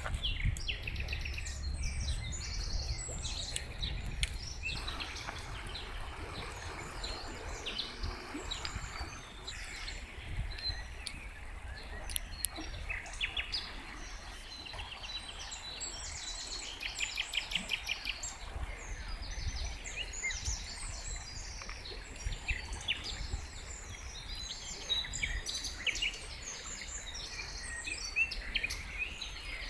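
Several songbirds singing and calling over one another, with short chirps and whistled notes throughout and a fast trill of rapidly repeated notes about two-thirds of the way through, over a low steady rumble.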